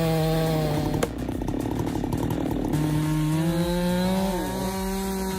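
Two-stroke chainsaw running at high revs with a steady engine note. About a second in it breaks off abruptly into a rougher, noisier stretch, then the steady note returns and steps up a little in pitch.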